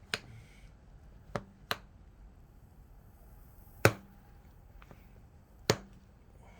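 Five sharp clicks and knocks of hand tools, with the loudest about four seconds in.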